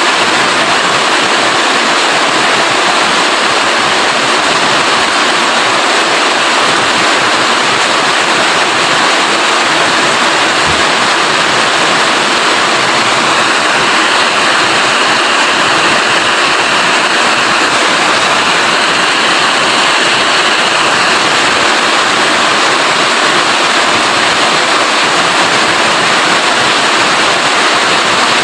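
Heavy rain falling steadily, a loud, even hiss of water with no breaks.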